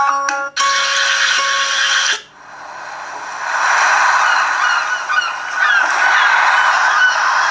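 A Samsung Galaxy S3 stock ringtone made from a nature recording: a wash of noise that dips about two seconds in and swells back, with many short bird calls like honking geese over it.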